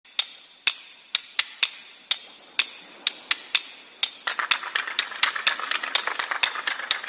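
Sharp clicking and clacking of a swarm of crabs' claws and legs. Single clicks come every half second or so at first, then from about four seconds in they crowd into a fast clatter over a rustling hiss.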